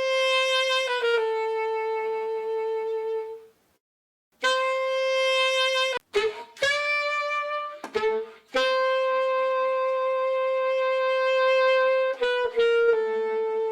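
Sampled saxophone loop playing long held notes in short phrases, with a brief pause about four seconds in and a few quick note changes.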